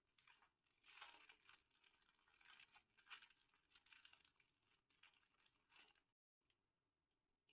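Faint crinkling and tearing of a plastic snack packet being handled and opened, in irregular rustles that cut off about six seconds in.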